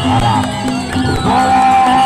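Traditional Sasak gamelan music: a wind instrument plays a wavering melody over the ensemble, then holds one long note from about halfway through.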